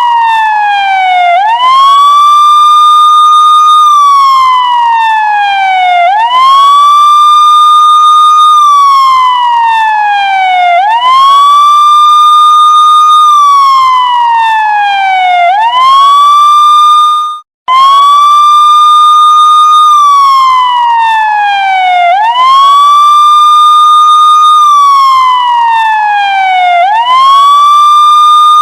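Police siren wailing: the tone rises quickly, holds at the top for about two seconds, then slides slowly down, repeating roughly every four and a half seconds. About halfway through it cuts out for an instant and starts again.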